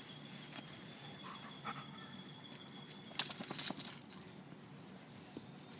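A golden retriever's metal collar tags jingling for about a second as the dog rolls in the grass, a little over three seconds in; before and after, only faint background.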